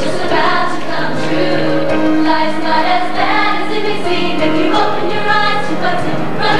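Show choir singing together, holding and moving between chords.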